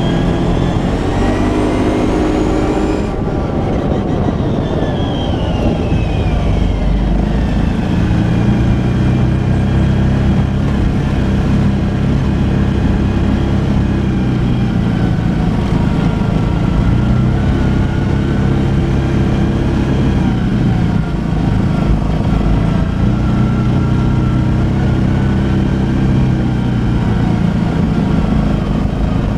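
Arctic Cat 650 V-Twin ATV engine running under way, revving up in the first few seconds and easing off from about four to seven seconds in, then running on with its pitch rising and falling as the throttle changes.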